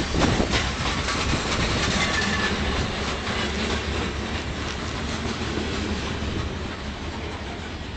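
Freight train cars rolling steadily past, wheels clacking over the rail joints.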